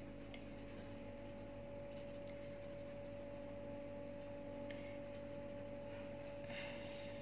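Colour pencil scratching on notebook paper in quick shading strokes, faint, over a steady low electrical-sounding hum.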